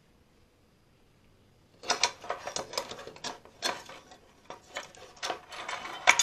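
Irregular metallic clicks, clinks and scrapes of a Climber stainless steel mortise lock and lever-handle set being handled and pulled apart, starting about two seconds in after a near-silent start.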